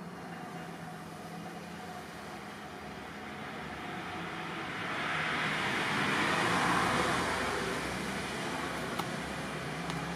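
A passing road vehicle: a steady rush of noise that swells to its loudest about six to seven seconds in, then fades again.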